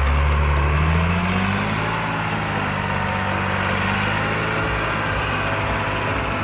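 A John Deere 8100 tractor's diesel engine runs on the silage clamp, where the tractor does the compacting. Its pitch rises over the first two seconds, then holds steady.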